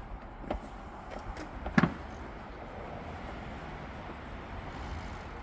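A few sharp clicks and knocks of hand tools and car parts being worked loose, the loudest about two seconds in, over a steady low background hum.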